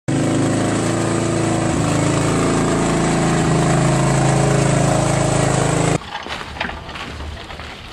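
Riding lawn mower engine running steadily. It cuts off suddenly about six seconds in, leaving a much quieter outdoor background with a few light knocks.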